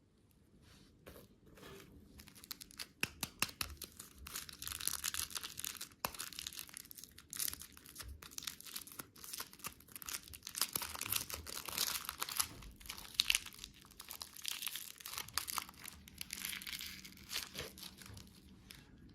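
Crinkly candy packaging being handled and torn open: a dense, uneven run of crackles and crinkles that builds over the first few seconds and dies away near the end.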